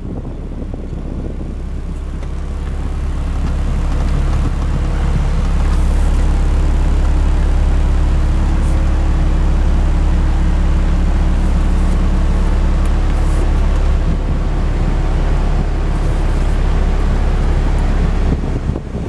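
Climate-control blower of a 2009 Mercedes-Benz SLK350 running on a high fan setting, air rushing out of the dash vent and buffeting the microphone with a deep rumble and a faint motor hum. It builds up over the first few seconds and drops off shortly before the end.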